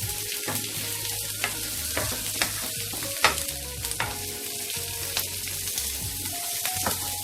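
Food sizzling in a hot pan while being stirred, with repeated short clicks and scrapes of a utensil against the pan; one knock a little past three seconds in is the loudest.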